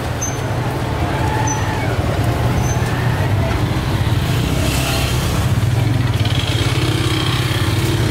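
Steady street traffic noise: vehicle engines running close by, with a low rumble throughout and a few faint short high squeaks in the first few seconds.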